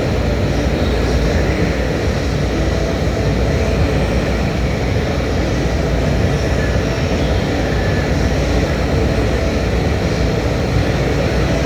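Annealing furnace with its conveyor belt running forward: a steady, loud machinery rumble with a hiss above it.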